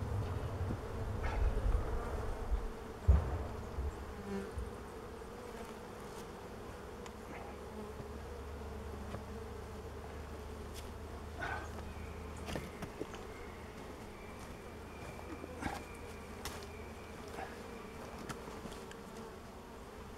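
Honeybees buzzing steadily around an opened Langstroth hive, a low even drone, with a few faint knocks.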